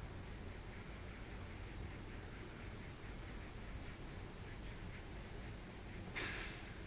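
Abyssinian cat purring with a low steady rumble while fingers rub the fur of its throat, making soft repeated scratchy rustles. A louder rustle comes about six seconds in.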